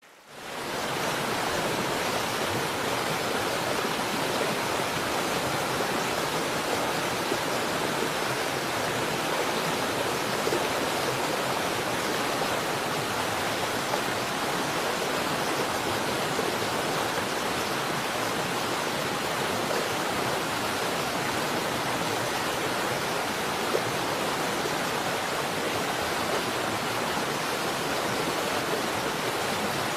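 River water flowing and rushing over rocks, a steady even rush that fades in over the first second.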